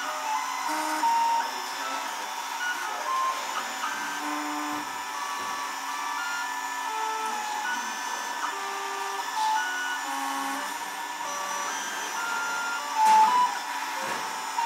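Old MakerBot 3D printer printing: its stepper motors sound short steady tones that jump from pitch to pitch as the print head moves, over a steady hum. A brief louder noise about thirteen seconds in.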